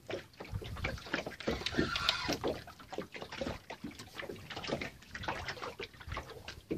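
Water sloshing and slapping against a boat's hull in irregular short splashes and knocks.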